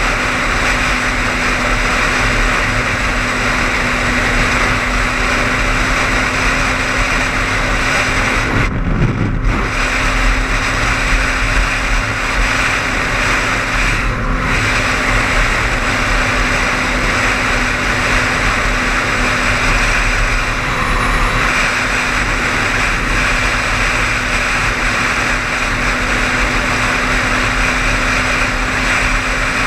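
Steady road noise of a car driving at highway speed: tyres, wind and engine with a constant low hum. The hiss briefly drops away twice, about nine and fourteen seconds in.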